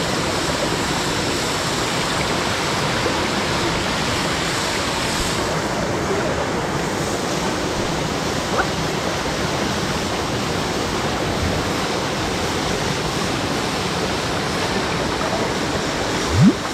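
Waterfall rushing steadily, a constant hiss of falling water that sounds slightly duller from about five seconds in. Near the end a brief rising sound stands out as the loudest moment.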